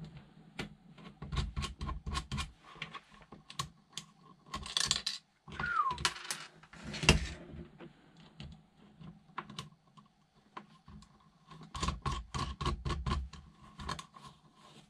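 Irregular light clicks and taps of hard plastic RC car parts being handled and fitted together by hand: the steering servo and its mount going onto the chassis, coming in small clusters.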